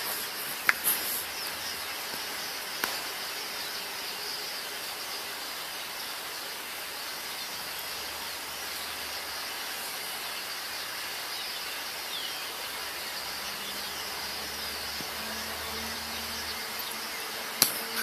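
Distant chatter of a large flock of birds, heard as an even high hiss with a few faint single calls over it, and a sharp click near the end.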